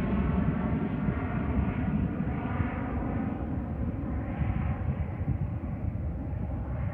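Boeing 737 jet airliner climbing away after takeoff: a continuous low rumble of its jet engines with a steady droning tone above it, slowly fading as it goes.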